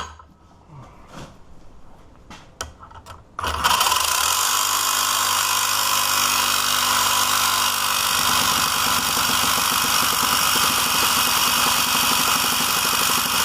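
A few faint clicks, then from about three and a half seconds in a reciprocating saw runs steadily, its blade cutting against the shackle of an ABUS Rock 83/55 padlock. The blade's teeth are wearing flat and leave almost no mark on the lock.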